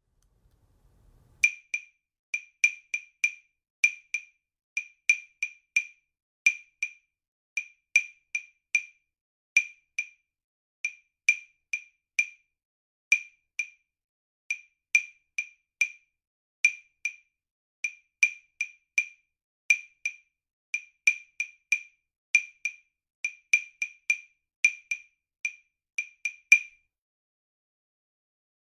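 Wood block playing a syncopated percussion rhythm: short, dry, pitched clicks in repeating groups. The pattern ends on a louder accented stroke near the end, followed by a pause of a few seconds.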